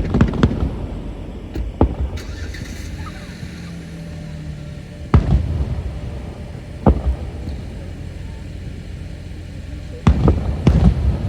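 Fireworks exploding: a series of sharp booms, several in quick succession at the start, single ones spaced a few seconds apart, and another quick cluster near the end, with a low rumble between them.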